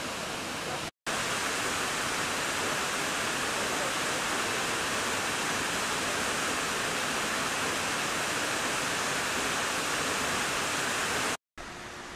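Waterfall pouring: a steady rush of falling water. It drops out for a moment about a second in and again near the end, coming back louder after the first break and quieter after the second.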